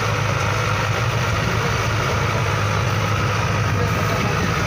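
Balkar B525 combine harvester mounted on a Mahindra Arjun Novo 605 DI tractor, harvesting paddy: its diesel engine runs at a steady drone, with a steady high whine over it.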